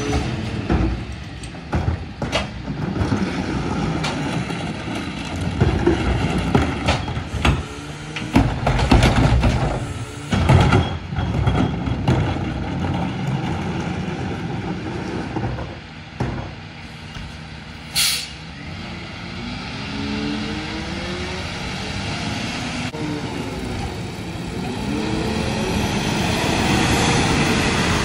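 Freightliner Econic SD rear-loader garbage truck working a stop: carts knock and bang against the McNeilus rear loader as they are tipped, over the idling engine. About two-thirds of the way through comes a short sharp air-brake hiss, after which the engine revs, rising and falling in pitch and getting louder as the truck moves off.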